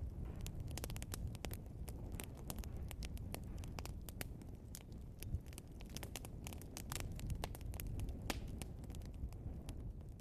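Burning logs in a fireplace crackling and popping: frequent sharp pops over a low, steady rumble of the fire.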